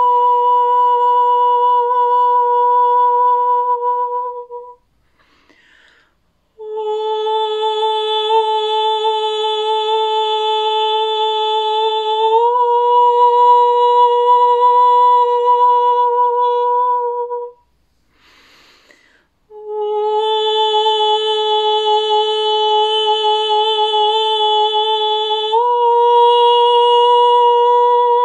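A woman's voice toning in a spontaneous sound meditation: three long, steady held notes without words, the second and third each stepping slightly up in pitch partway through, with a short breath between notes.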